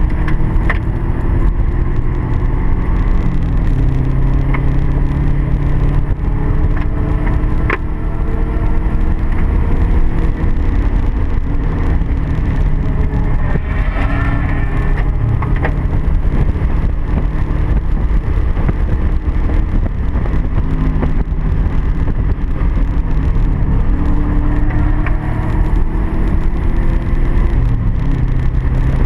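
Car engine under hard track driving, its pitch climbing and dropping repeatedly as it pulls through the revs and backs off, over heavy road and wind noise.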